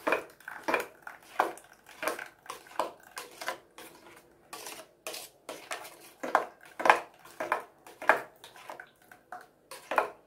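A spoon scraping and tapping against a stainless steel mesh strainer in repeated strokes, about two a second, as thick watermelon and beetroot pulp is pressed through the sieve.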